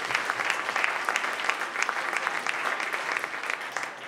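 Audience applauding, the claps thinning out near the end.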